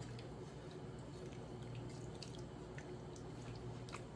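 Hot dye water in a large stockpot, with scattered small drips and bubbling pops as a wig is moved through it with metal tongs, over a steady low hum.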